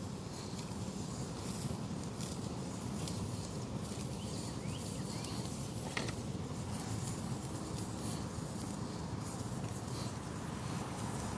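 Steady low outdoor background noise with a single light click about six seconds in.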